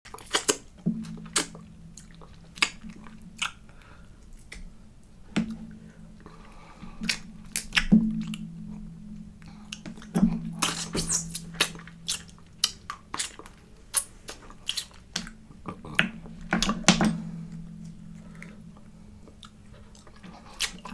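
Close-up chewing and mouth smacking while eating boiled Dungeness crab, with irregular sharp clicks and cracks from the crab shell being picked apart by hand.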